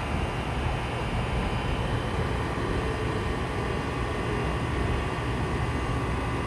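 Steady low rumble of an approaching freight train's diesel locomotive in the distance, with an even drone and no distinct events.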